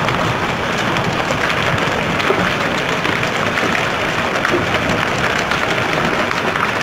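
Hail and rain falling hard on paved ground and running water: a dense, steady patter of countless small hits.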